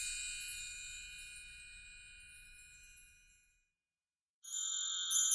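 Wind chimes sound effect: a shimmer of many high ringing chime tones fading out to silence over about three and a half seconds, then a new cluster of chimes starting up about a second later.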